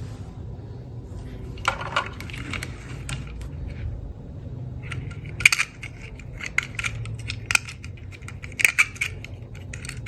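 Plastic toy cars and their packaging being handled: scattered light clicks and clatters, sparse at first and thicker in the second half, over a faint steady low hum.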